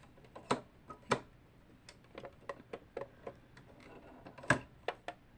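Irregular small clicks and taps from a sewing machine being handled while it is threaded, with two sharper knocks, one about a second in and one near the end.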